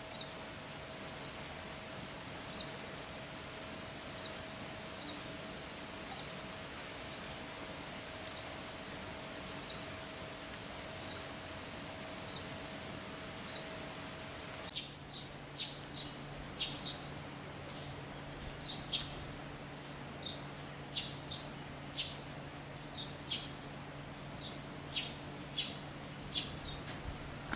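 Small birds chirping in short, high calls, about one a second at first, then more often and in quick runs from about fifteen seconds in, over a steady background hum.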